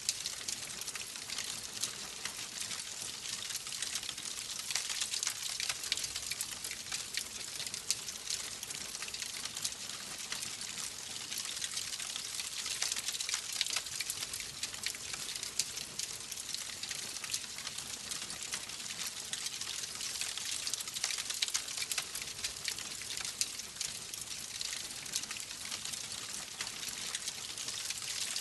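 Wood fire burning steadily: a continuous crackle of many small pops and snaps over a soft hiss.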